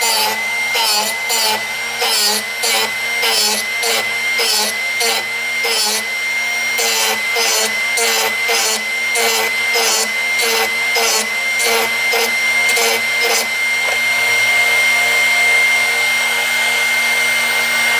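Drill Doctor XP2 drill bit sharpener running with a steady whine while a drill bit's point is ground on its sharpening wheel. The grinding pulses about twice a second as the bit in its chuck is turned back and forth in the port. About 13 seconds in the pulsing stops and the motor runs on alone, smooth and steady, with the bit lifted out.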